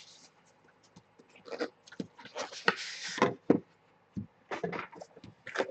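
Handling noise from opening a trading-card box: irregular rustling and tearing of packaging with a longer rustle midway and a few light clicks and taps.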